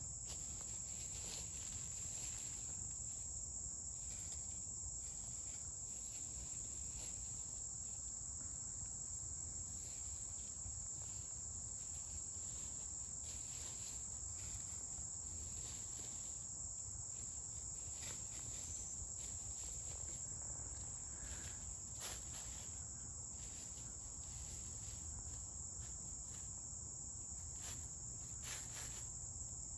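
Steady high-pitched insect chorus, with faint scattered rustles and scratches of chickens foraging in dry leaf litter.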